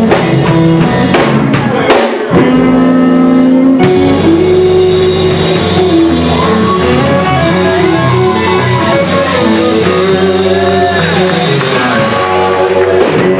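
Live electric blues band, two electric guitars over a drum kit, playing a slow blues instrumental. A chord rings out held for about two seconds, then the lead guitar plays a run of bent notes that rise and fall.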